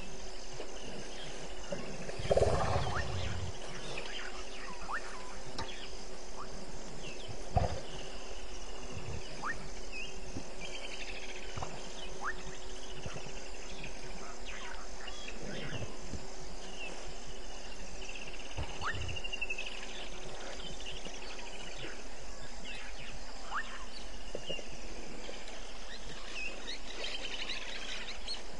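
Night chorus of crickets and other calling creatures at an African bush waterhole: a steady high trilling, with short repeated chirping calls every few seconds. A low thump comes about two seconds in and a sharp click near eight seconds.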